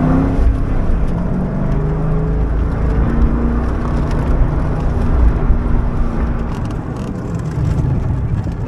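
The 4.6-litre V8 of a 1999 Ford Mustang SVT Cobra running hard through an autocross course, its pitch rising and falling with the throttle. A heavy low rumble of road and wind noise comes with it, heard from inside the cabin.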